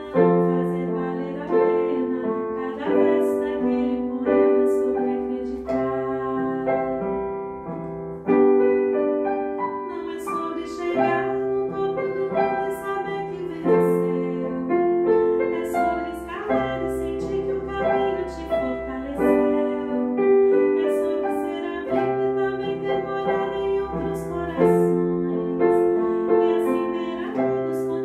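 A woman singing a Brazilian popular song with piano accompaniment, the piano striking a chord every second or two.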